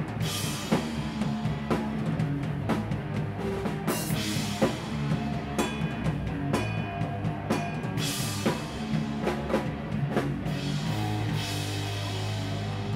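A live rock band playing: a drum kit with steady hits and a crash cymbal about every four seconds, over bass guitar and electric guitar.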